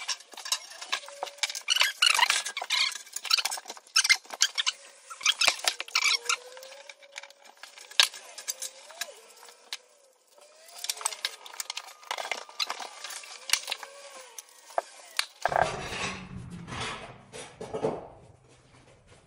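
Copper pipe and brass fittings being handled and fitted: a string of sharp metallic clinks and knocks. Near the end comes a few seconds of denser rubbing and handling noise.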